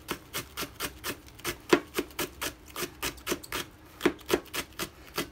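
Kitchen knife thinly slicing a Japanese long green onion on a plastic cutting board: a steady run of quick chopping strokes, about four a second.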